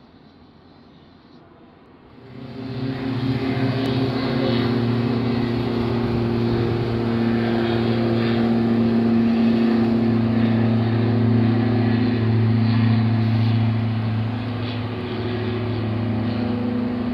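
An Airbus A340-300's four CFM56 jet engines on the landing roll-out come in loud about two seconds in as reverse thrust is applied. The engine noise then holds steady, with a deep drone under a broad rush, and eases slightly near the end.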